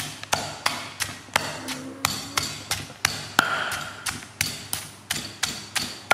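Wooden pestle pounding lemongrass paste in a stone mortar: a steady run of sharp knocks, about three a second.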